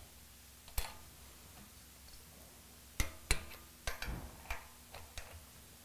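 Torque wrench clicking on the rocker shaft nuts of an AeroVee engine as they are tightened to 14 pound-feet: one sharp metallic click about a second in, then a run of about five ticks from about three seconds in.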